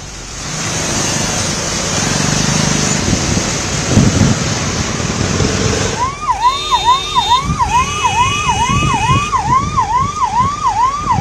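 Road traffic noise from a jam of cars, then about six seconds in an ambulance siren starts: a fast, repeating yelp about two and a half times a second. Car horns sound over it for a few seconds.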